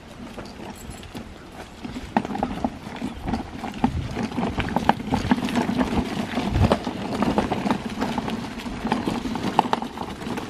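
Child's pull-along wagon rolling over a bumpy dirt and gravel path, its wheels and body rattling and clattering in an irregular run of knocks, with footsteps alongside.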